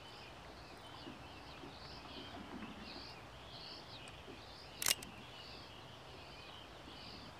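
Small birds chirping over a steady outdoor hiss, with one sharp click about five seconds in.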